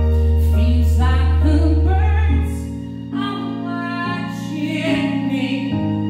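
Live song on keyboard and violin with a voice singing over them; a deep sustained bass note drops away about two and a half seconds in.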